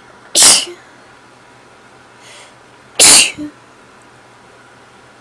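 A person sneezing twice, about two and a half seconds apart; each sneeze is a short, loud burst with a brief tail.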